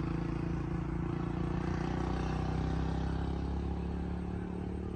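A vehicle engine running steadily with a low hum, slowly growing fainter.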